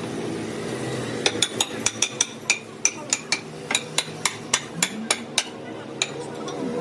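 Series of light hammer taps on metal, about three a second, each with a short metallic ring, over a steady low hum.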